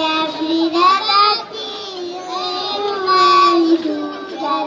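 Children singing a song through loudspeakers, in long held notes that glide from one pitch to the next.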